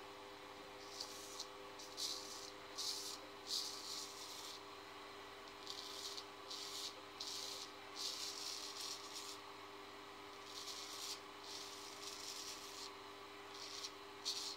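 Straight razor scraping stubble through shaving lather in short strokes, a dry rasp with each pass, coming in quick runs with brief pauses between them.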